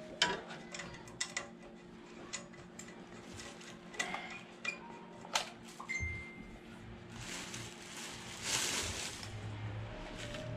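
Brass refrigerant hose fittings and tools clicking and knocking as they are handled, over a faint steady hum. Near the end, a hiss for about two seconds as gas escapes from the manifold gauge hoses.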